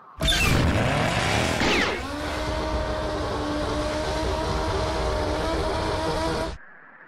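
Race-car engine sound effect laid over an animated snail speeding along. It comes in suddenly with about two seconds of revving, settles into a steady engine note, and cuts off abruptly near the end.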